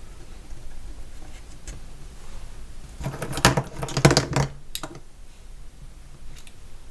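Light handling noise of small wooden model parts: scattered faint clicks and taps as a wooden window-frame piece is held and fitted against a wooden model hull, with a louder run of clicks, knocks and rustling about three to four and a half seconds in.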